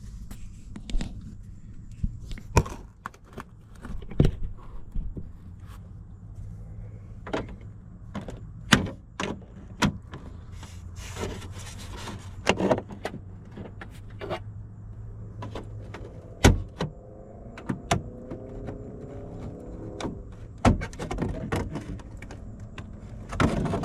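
Plastic Jeep dash trim being worked loose by hand: a string of sharp clicks, knocks and snaps from clips and panel pieces, with plastic creaking in the last third. A steady low hum runs underneath and stops about two-thirds of the way through.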